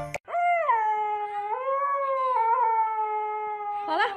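A puppy giving one long howl of about three and a half seconds, its pitch wavering and stepping up and back down partway through, then a short rising cry near the end.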